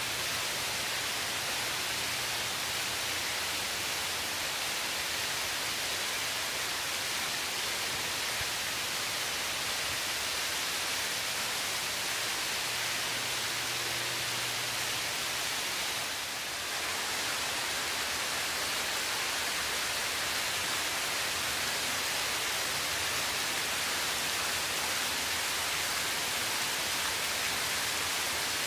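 Water sheeting down the walls of a cascade fountain and splashing into its trough, a steady hiss of falling water.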